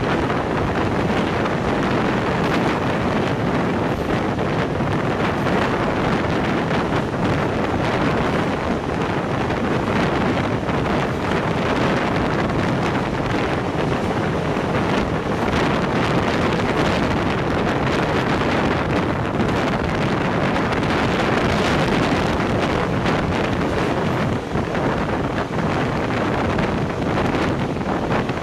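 Steady wind buffeting the microphone over the continuous rumble of a moving train, as heard aboard a steam-hauled excursion train.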